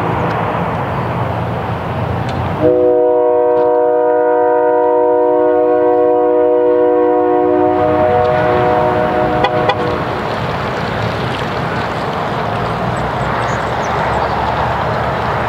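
A multi-tone horn sounds one long steady chord of about seven seconds, starting about three seconds in, its lower notes stopping a little before the upper ones, over a steady rumble.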